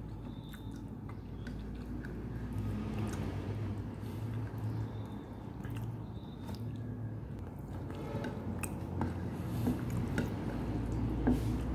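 Wet squishing of fingers working through soupy noodles and tofu on a plate, with chewing and small clicks that grow busier near the end, over a low steady hum.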